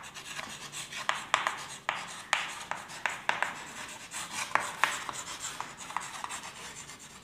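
Chalk writing on a blackboard: an irregular run of short scratchy strokes and sharp taps as letters are written.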